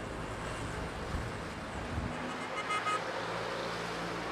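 City street traffic: a steady wash of cars and a bus driving past, with a low engine hum coming through more clearly about three seconds in.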